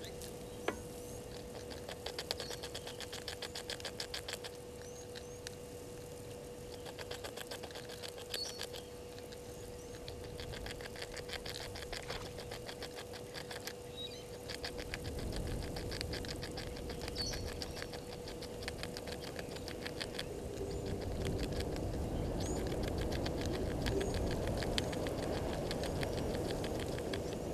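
Outdoor waterhole ambience: repeated runs of rapid, high-pitched clicking, each lasting a few seconds, with a few short high bird chirps and a faint steady hum. A low rumble builds from about halfway through.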